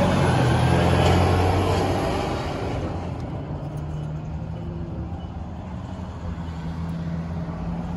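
Semi-truck hauling a shipping container driving past on the road, loudest for the first few seconds and then fading away, leaving a low steady hum.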